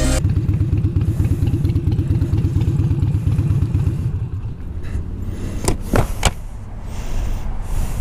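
Harley-Davidson motorcycle's V-twin engine pulsing at low speed as the bike rolls in, then dropping to a quieter idle about halfway through. Three sharp clicks come about six seconds in.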